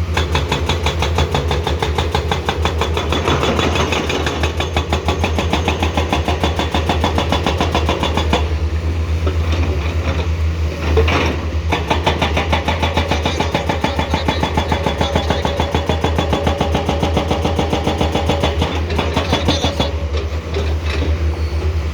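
Komatsu PC210 excavator's diesel engine running steadily, a fast even pulse, with a single sharp clank about eleven seconds in.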